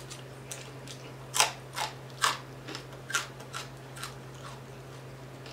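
Crispy whole fried tilapia crunching and crackling as it is torn apart by hand and chewed: about half a dozen sharp, irregular crackles, over a faint steady hum.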